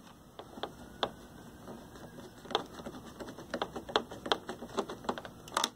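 Screwdriver turning a screw into the cabinet of a portable TV set: a run of small irregular clicks and ticks of metal on metal and plastic, coming thicker from about halfway in, with a louder cluster near the end.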